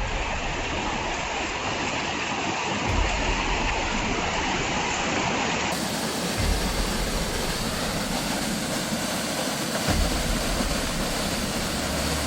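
Floodwater rushing steadily through a street, a dense continuous roar of moving water, its tone shifting slightly about halfway through.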